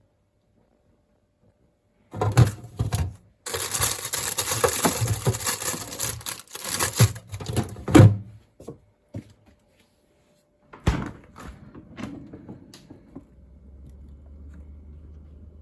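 Close rustling and crinkling, like packaging being handled, for several seconds, with a few sharp knocks. Near the end a faint steady low hum starts.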